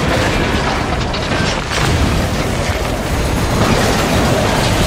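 Crash sound effects of a derailing train: a continuous loud, heavy rumble with metal rattling and repeated impacts.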